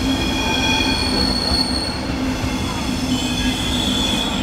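Passenger coaches rolling slowly past with a steady low rumble from their wheels and several high-pitched wheel squeals that come and go.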